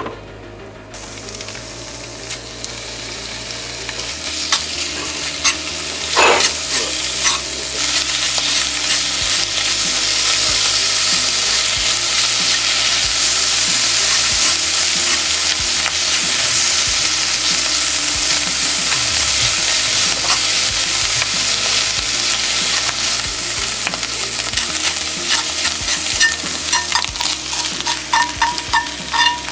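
Butter and bacon sizzling in a cast-iron skillet. The frying builds over the first few seconds into a steady, loud sizzle, with scattered clicks of tongs against the pan as the strips are turned.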